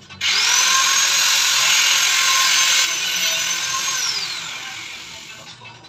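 Electric power tool running: its motor spins up, holds a steady high whine for about four seconds, then winds down with a falling pitch near the end.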